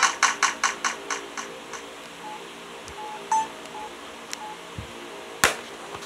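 Samsung SCH-A950 flip phone's ringtone ending, its quick repeated notes fading away over the first two seconds. A few faint short beeps follow, and a sharp click comes near the end as the phone is handled.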